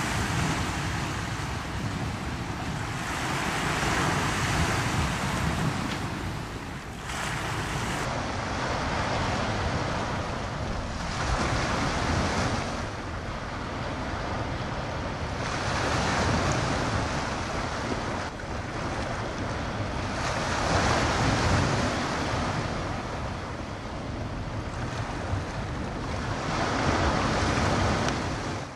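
Small waves washing onto a pebble shore, the sound swelling and falling back every few seconds, with wind rumbling on the microphone.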